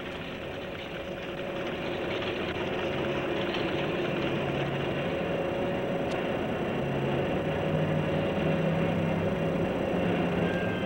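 Workshop machinery running: a steady mechanical clatter and hum from many machines at once, growing louder over the first few seconds.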